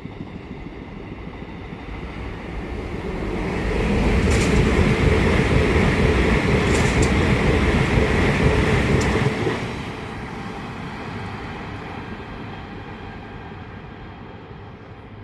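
A train passing at speed on the main line: it rises as it approaches, runs loudest for about five seconds with a few sharp clicks from the wheels and rails, then drops off suddenly and fades away.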